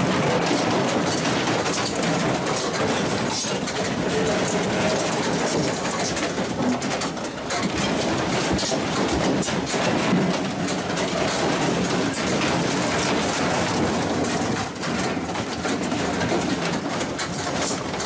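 An office rattling and creaking as the building shakes in a strong earthquake: a continuous clattering of shaken fittings and furniture, thick with small knocks and rattles.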